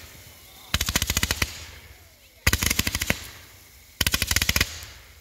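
Consumer firework cake going off in three quick volleys, each a rapid rattle of about a dozen sharp bangs lasting under a second, about a second in, near the middle, and near the end.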